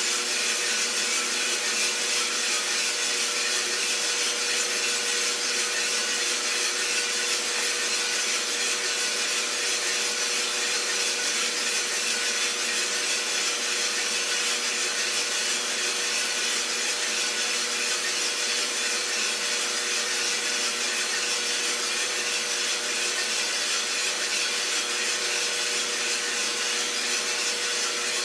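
Iroster600 coffee roaster running steadily mid-roast: an even rushing, scraping noise with a constant hum tone from its motor, as the beans are turned over inside.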